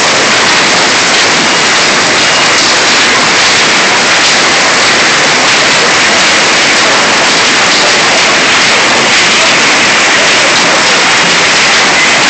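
Hailstorm: hail and heavy rain pelting the pavement and parked cars, a loud, steady, dense hiss.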